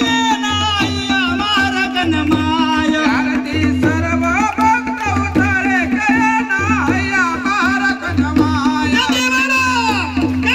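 Devotional aarti song to Ramdev Pir: a man's voice singing through a microphone over a steady held drone and an even drum beat, with the crowd clapping along.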